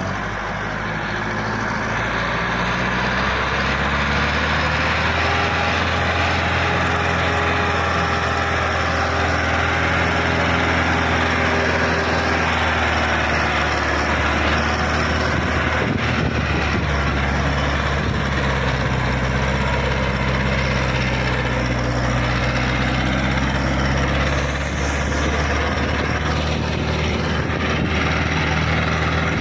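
Massey Ferguson 385 tractor's diesel engine working hard under load as it pulls a sand-laden trolley up out of a sand pit, a steady heavy engine note that wavers in pitch. Its black exhaust smoke marks the engine straining under the load.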